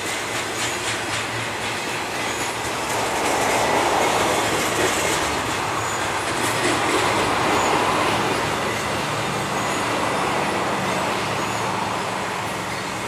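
Intermodal freight train's container and trailer cars rolling past on steel rails: a steady rumble and hiss of wheels on track that swells a few seconds in and eases slightly near the end.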